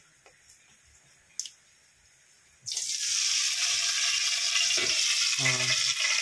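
Oil poured into a hot steel kadai, starting suddenly about two and a half seconds in and then sizzling loudly and steadily.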